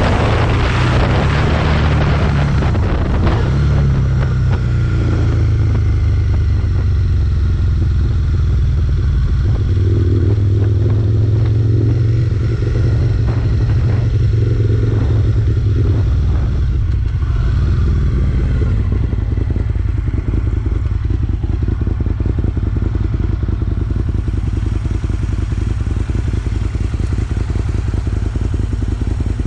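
Aprilia SL 1000 Falco's V-twin engine running through a GPR Furore aftermarket exhaust with its dB killer fitted. The sound is a deep, steady note, with small shifts in pitch in the first half.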